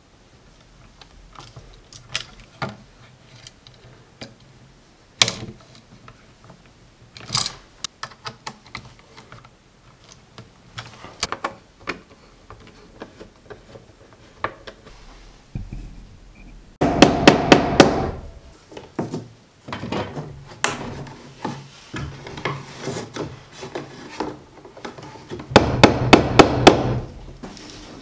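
Hand tools and fittings at an electrical box: a screwdriver and metal receptacle parts clicking, scraping and tapping against a plastic box. Two louder stretches of rapid knocking come just past halfway and near the end.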